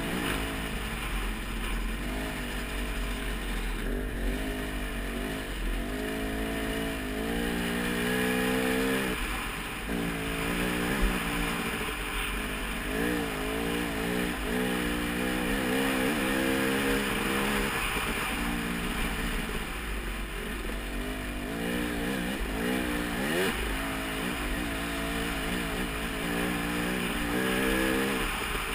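Dirt bike engine running hard, its pitch climbing and dropping again and again as the rider works the throttle and shifts, over a steady rushing noise.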